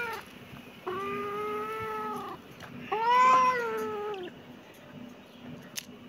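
Tabby-and-white cat meowing: the end of one meow at the start, then two long drawn-out meows, the second louder, each rising slightly and then sagging. A short sharp click near the end.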